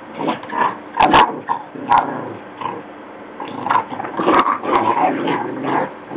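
Jack Russell terriers and a Border Collie growling and yapping in rough play over a stuffed toy, with sharp loud barks about a second in and again near two seconds, then a run of growls and yips.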